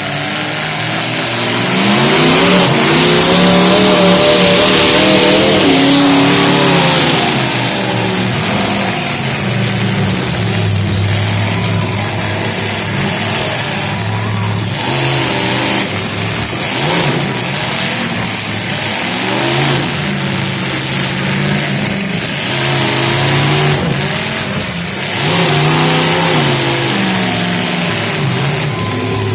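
Several demolition derby car engines revving hard, their pitch rising and falling over and over as the cars accelerate and back off.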